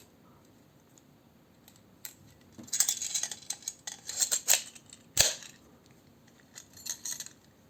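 An AK bayonet knife with its strap being handled: scraping and rustling from about three seconds in, then one sharp metallic click a little after five seconds, and a few lighter clicks near the end.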